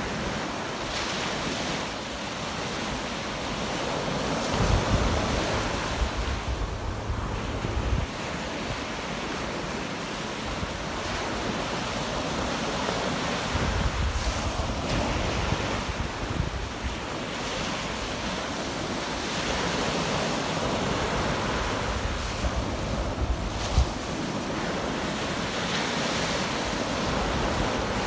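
Small sea waves breaking and washing up a sandy shore, the surf swelling and easing every few seconds. Gusts of wind rumble on the microphone now and then, most around five and fourteen seconds in.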